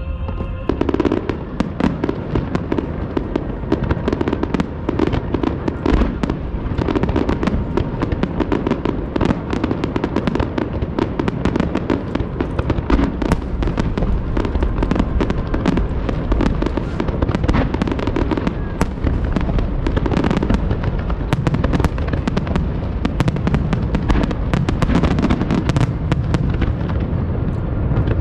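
Fireworks display at its height: a continuous barrage of shell bursts and crackling, many sharp reports a second over a low rumble of booms.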